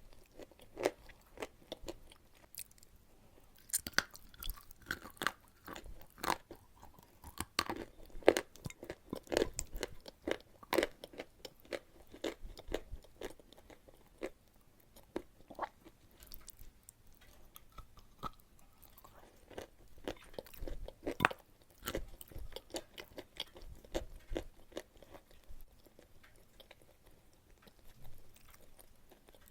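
Close-up chewing of eating chalk: irregular, sharp crunches as the chalk is bitten and ground between the teeth, denser in the first half and sparser later.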